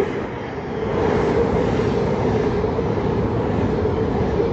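Thameslink Class 700 electric multiple unit running past the platform: steady rumble and rail noise with a steady hum, growing louder about a second in.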